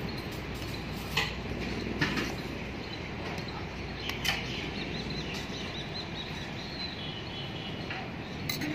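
Steady background hiss with a few sharp clinks of a steel spoon against a steel plate, about a second in, two seconds in and near the middle. A bird chirps in a quick warbling run a little past halfway.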